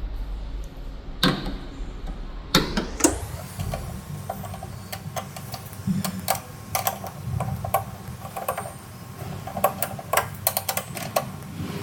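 T45 Torx tool loosening the screws of a car's boot latch: a few sharp knocks as it is fitted, then a long run of irregular light metallic clicks while the screws are undone.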